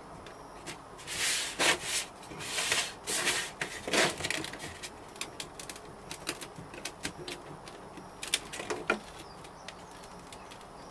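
A few short scraping, brushing strokes in the first few seconds, then scattered light taps and clicks: hand work at a bench.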